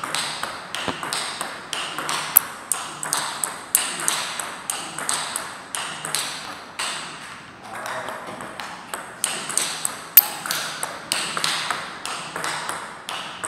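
Table tennis rally: the celluloid-type plastic ball is struck by rubber-faced paddles and bounces on the table, making a quick, steady run of sharp clicks that ring briefly in a large hall.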